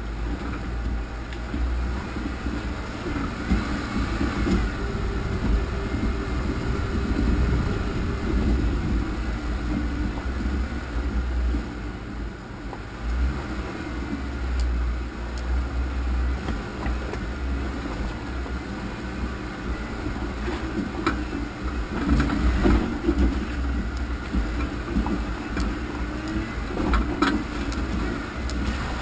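Off-road vehicle engine running at low speed as it crawls over a rocky, muddy trail, with an uneven low rumble. A few sharp knocks and rattles from the jolting come in the second half.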